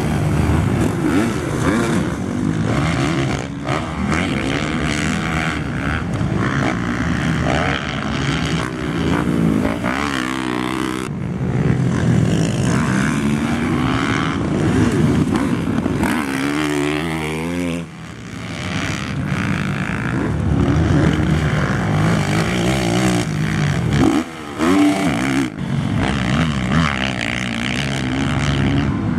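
Motocross dirt bike engines revving, the pitch repeatedly climbing and dropping off as the throttle opens and closes, with a couple of brief lulls.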